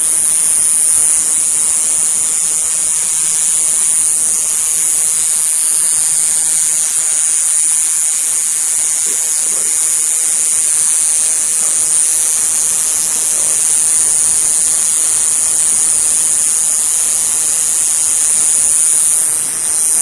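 Male citrus cicada (Diceroprocta apache) singing: a steady, high-pitched buzz made by its vibrating tymbals, unbroken throughout.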